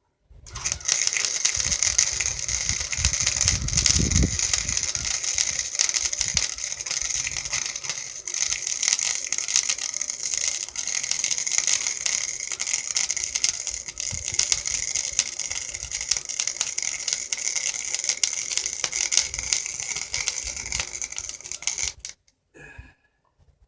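Welding arc laying a long bead on go-kart pedal steel: a steady, dense crackle and sizzle for about 22 seconds that stops abruptly when the arc is broken.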